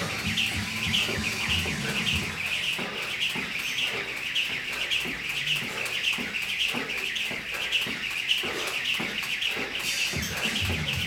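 Jump rope whirring through steady skipping: quick, evenly repeated swishes, about three to four a second, with light thuds of the landings.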